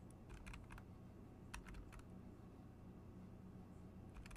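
Faint computer keyboard keystrokes over a low steady hum: a quick run of taps near the start, a few more about a second and a half in, and one near the end.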